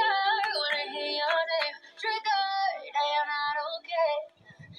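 A song with a female lead vocal plays as background music, the singing running on with short breaks between phrases.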